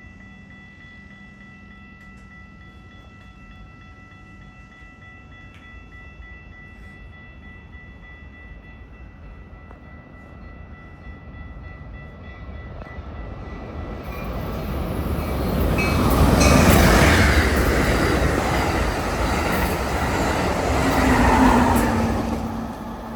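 Amtrak Hiawatha passenger train approaching and passing close by. The rumble and rail noise build from about halfway in to a loud peak, swell again briefly, then drop away sharply near the end.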